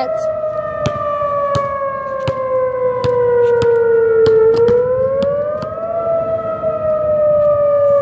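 Whelen 2810 outdoor warning siren sounding its wail tone on test: a loud tone that slowly falls in pitch, rises again around the middle, then falls once more.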